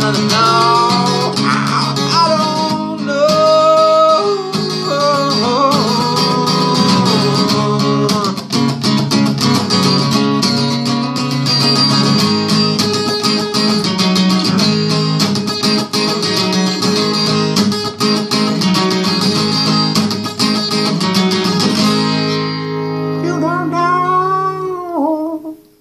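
Acoustic guitar strummed, with a man's voice singing long, wordless, sliding phrases over it. Near the end the strumming thins out under one last rising-and-falling sung phrase, then the music stops.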